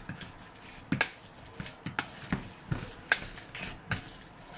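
Mutton pieces being mixed by hand with a spice marinade in a metal bowl: a string of wet squelches and light knocks against the bowl, about two a second, with two louder knocks about a second in and about three seconds in.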